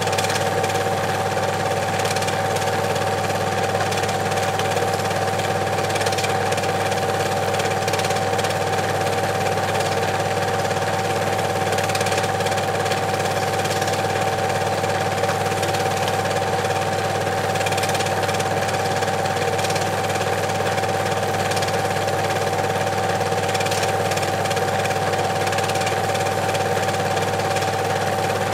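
Cine film projector running steadily, a mechanical whirr whose pitch stays the same throughout.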